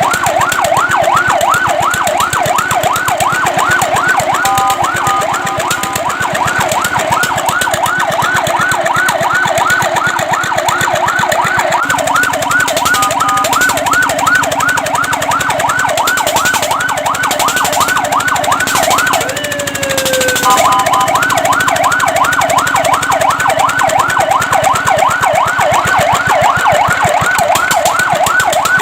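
Fire truck's electronic siren sounding a fast yelp, rising and falling about three or four times a second. It is broken three times by a short steady tone, and about two-thirds of the way through by one slower sweep down.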